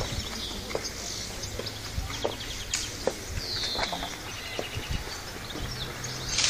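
An outdoor crowd standing silent for a minute of silence, with songbirds chirping and trilling over it, a few faint scattered knocks and shuffles, and a low steady hum.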